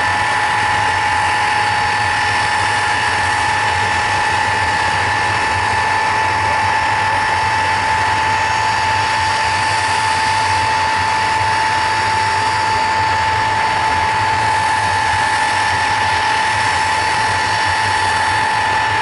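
Ilyushin Il-62's four rear-mounted jet engines running, a steady high whine over a rushing hiss and low rumble.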